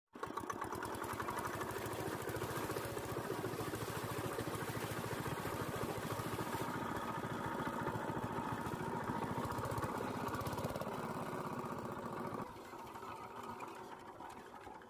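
Small single-cylinder diesel engine driving a water pump, running steadily with a fast, even beat. About twelve seconds in it becomes noticeably quieter and keeps running.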